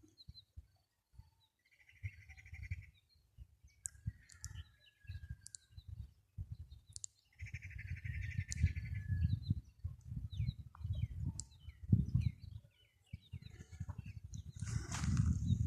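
Songbirds calling: two long buzzy trills and many short, high chirps, over a run of low, irregular thumps.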